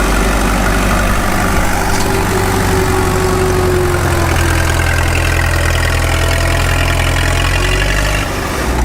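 Tractor engine running steadily at idle, a low even hum, which changes near the end.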